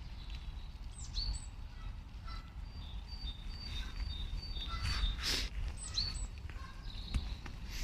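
Small birds chirping and singing, with short high notes and a few quick falling whistles, over a steady low rumble. A brief rustle sounds about five seconds in.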